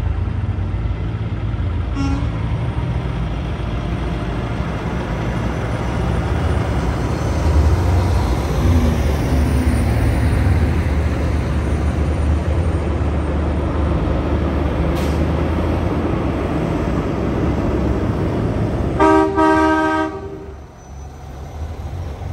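Heavy truck engines rumbling as trucks pass, growing louder midway. A short horn toot comes about two seconds in, and a loud air-horn blast of about a second comes near the end.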